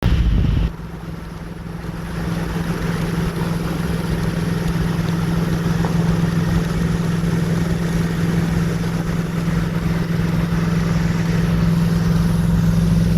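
Truck driving at road speed, heard from inside the cab: steady engine hum under road and wind noise, a little louder from about two seconds in.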